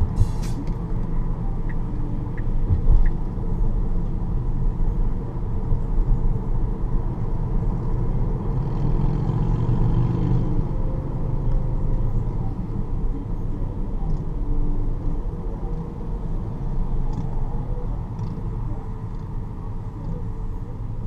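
Road and tyre rumble heard inside the cabin of a moving Tesla electric car, a steady low noise with no engine note. It swells for a couple of seconds about nine seconds in as a motorcycle rides close alongside.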